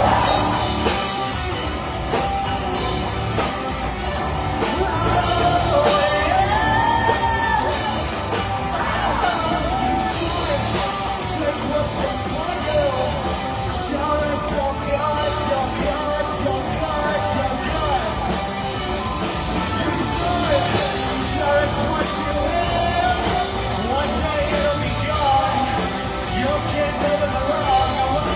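Live rock band playing loud with a vocalist singing and yelling over distorted instruments.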